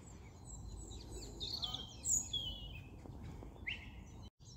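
Songbirds chirping and singing faintly, with quick high chirps and sliding whistled notes, one louder about two seconds in, over a low steady outdoor rumble.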